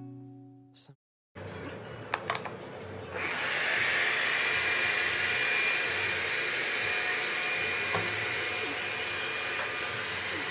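Morgan MRV-VAC1 robot vacuum starting up about three seconds in, after a few sharp clicks. It then runs steadily, with a whirring fan and a high whine.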